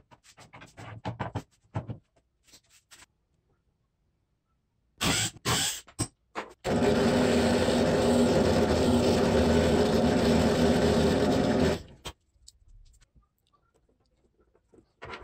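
A few sharp knocks, then a drill press running steadily for about five seconds as it drills out the indent for the Acme thread's brass nut in a block of wood, stopping suddenly.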